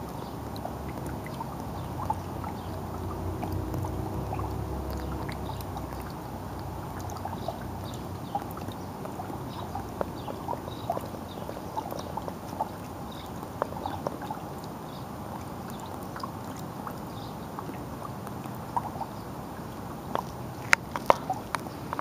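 Raindrops falling into a shallow puddle: small, irregular drips and plinks over a steady hiss, with sharper, louder drips near the end.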